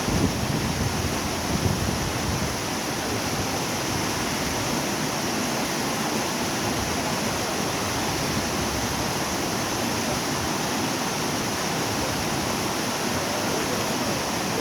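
Waterfall: a steady, even rush of falling water, with a couple of brief low buffets in the first two seconds.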